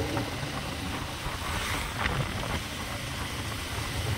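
Motorcycle running along the road, heard from the pillion seat, with wind rushing over the microphone and a steady low engine and road rumble.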